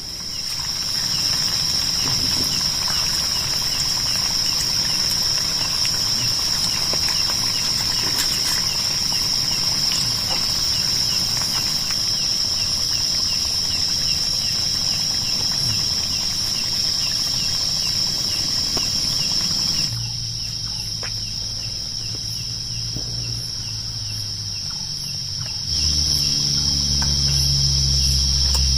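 Insects chirring in one steady high-pitched note, with a fine fast pulsing beneath it. The background changes abruptly twice, and a low hum joins near the end.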